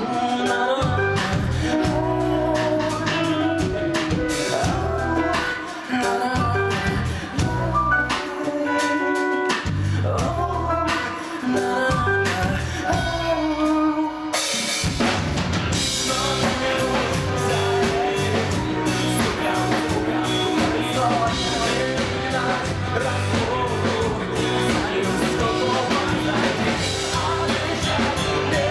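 Live rock band playing a passage led by the drum kit, with kick drum and snare hits over sustained instrumental lines. About halfway through, the band comes in fuller, with the upper range filling out.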